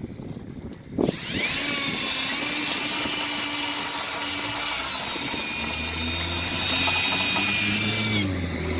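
Power drill spinning a wire brush against brake parts, scrubbing off rust and grime. It starts about a second in, runs steadily with a high whine and a harsh scraping hiss, then winds down and stops near the end.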